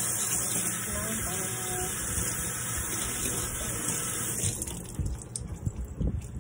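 Kitchen tap running into a sink in a steady hiss, shut off abruptly about four and a half seconds in, followed by a few light knocks and clatter.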